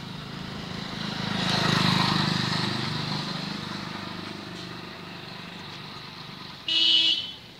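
A motor vehicle engine running and passing close, loudest about two seconds in and fading after, then a brief horn toot near the end.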